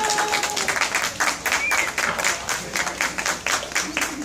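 Spectators clapping: many sharp hand claps, several a second, thinning out near the end.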